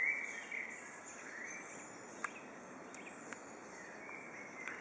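Woodland ambience: birds singing, with whistled calls gliding up and down, strongest near the start, over a steady faint hiss. Two short clicks come in the middle.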